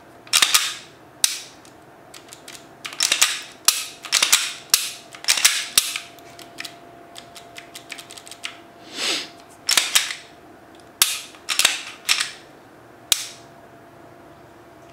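A Glock-pattern PSA Dagger pistol with a Timney Alpha trigger being dry-fired and cycled by hand: a string of sharp metallic clicks and clacks from the trigger breaking and the slide being worked, some in quick pairs and clusters, stopping near the end. The trigger is not resetting properly, a fault caused by an aftermarket connector bar.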